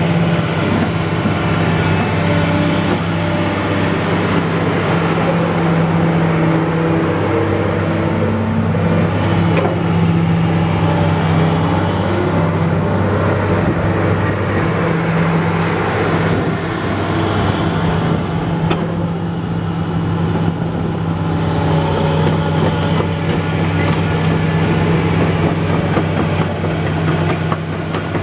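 Komatsu PC400LC-6 excavator's six-cylinder turbodiesel engine running steadily with a deep, even hum.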